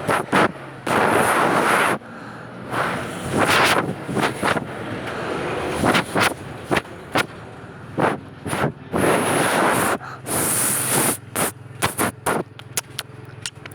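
Wind buffeting the microphone in irregular gusts, each a loud rush of noise, broken up by many sharp pops and crackles as the microphone overloads.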